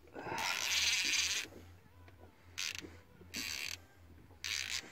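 Baitcasting fishing reel being cranked in bursts, a whirring, ratcheting noise as line is wound in: one long run of turns at the start, then three short ones.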